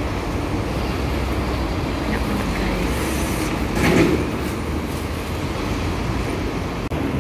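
Steady low rumble of street traffic, with a brief louder clunk about four seconds in.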